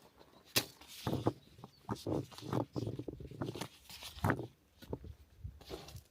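A series of irregular short knocks and rustles, about a dozen, as of things being handled or moved about.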